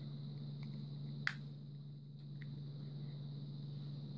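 Plastic housing half of a butane torch lighter clicking into place: one sharp snap about a second in, with a few fainter plastic clicks, over a steady low hum.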